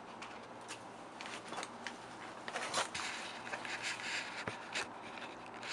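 Irregular soft rustling and scraping of a person moving about close to the microphone, over a faint steady low hum.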